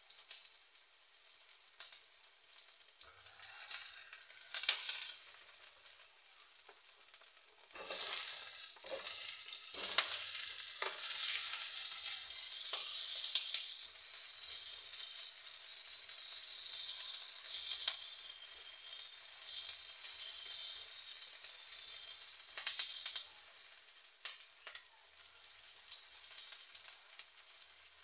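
Chopped shallots and garlic sizzling in hot oil in a nonstick wok, stirred and scraped with a spatula. About eight seconds in, the sizzle jumps much louder with a few knocks as potato chunks go into the pan, then holds as a steady sizzle that thins toward the end.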